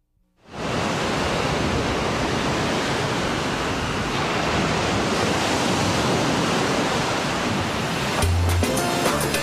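Ocean surf washing onto a beach, a steady rushing that fades in at the start. About eight seconds in, music comes in with a low drum hit.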